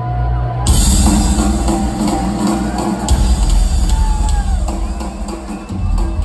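Live rock band playing in an arena, heard from the audience: a low held drone, then a drum kit crashes in about a second in with heavy drumming and cymbals.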